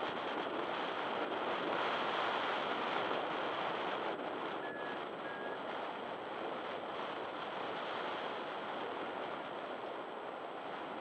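Steady rush of wind over the camera microphone from the airflow of a paraglider in flight, a little louder in the first few seconds.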